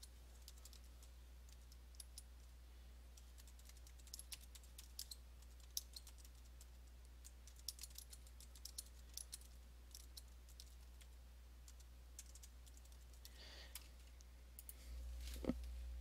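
Computer keyboard being typed on: faint, irregular keystrokes over a low steady hum.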